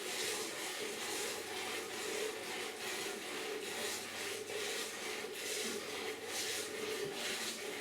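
Goat being hand-milked into a pail: streams of milk squirt into the bucket in a steady rhythm, one hissing squirt about every second.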